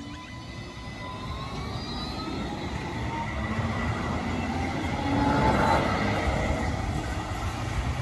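Alstom Citadis 305 light rail tram running past, a rumbling hiss that grows steadily louder to a peak about five to six seconds in, with a whine that rises in pitch.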